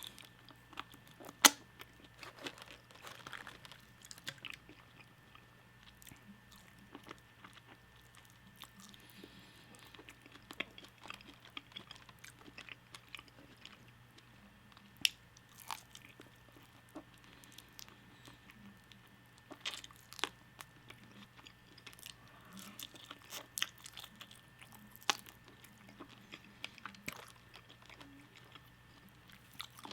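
Close-miked mukbang eating: a person chewing and biting into crispy fried Wingstop food, with irregular wet chewing and sharp crunches, the loudest about a second and a half in.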